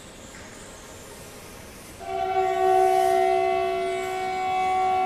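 Faint hiss, then about two seconds in a loud horn starts sounding a steady chord of several held tones without a break.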